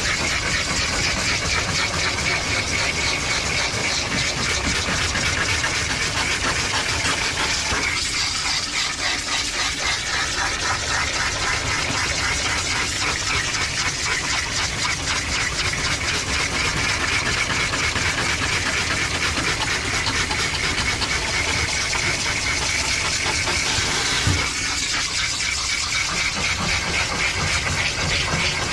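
Water spraying steadily from a hand-held bathing-hose attachment into a wet Shetland sheepdog's dense coat, a continuous rushing hiss. This is water being driven through the conditioned coat to loosen the undercoat.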